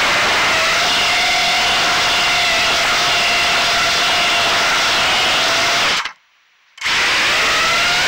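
Armattan Gecko 3 FPV quadcopter's motors and propellers whining in flight, the pitch gliding up and down with throttle. The sound cuts out for under a second about six seconds in, then returns.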